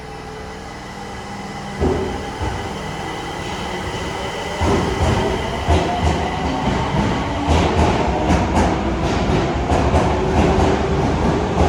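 Osaka Metro subway train pulling out of the platform and gathering speed. After a sudden jump in level about two seconds in, the wheels start clacking over the rail joints, the beats coming faster and louder as the train speeds up.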